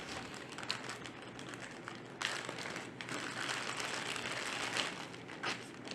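Plastic packaging crinkling and rustling as a boxed cable is handled. The rustling grows denser from about two seconds in until near five seconds, with a few light clicks along the way.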